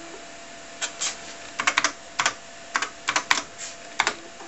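Keys being pressed on a TRS-80 Model 4 keyboard: about a dozen separate key clicks in irregular groups, typing the DEVICE command at the LDOS prompt.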